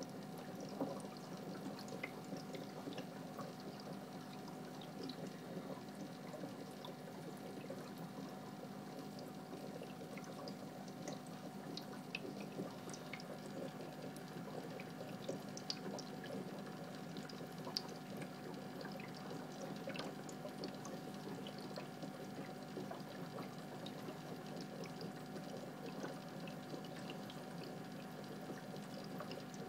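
Aquarium sponge filter bubbling and trickling steadily, with a faint steady hum and scattered small pops from the bubbles.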